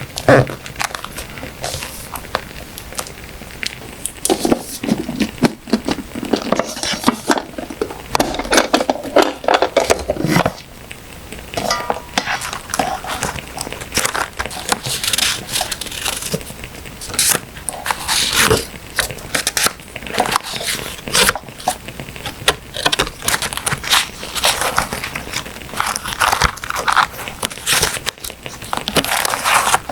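Paper being handled for journal decorating: irregular rustles, crinkles, scrapes and small taps.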